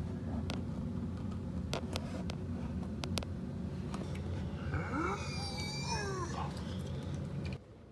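A Great Dane gives a whining yawn about five seconds in, its pitch sliding up and then down, over a steady low rumble with a few sharp clicks before it. The rumble cuts off suddenly near the end.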